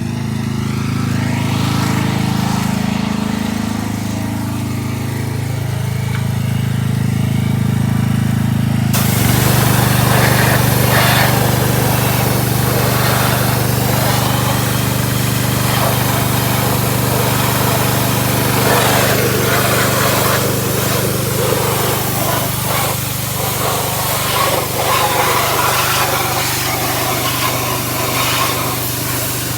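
A pressure washer's small gasoline engine runs steadily. About nine seconds in, the hiss and spatter of its water jet starts, blasting a bare engine block, and goes on.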